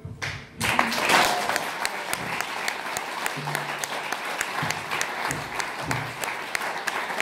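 Audience applause breaking out suddenly about half a second in, as the final chord of the song dies away, then going on steadily as dense clapping.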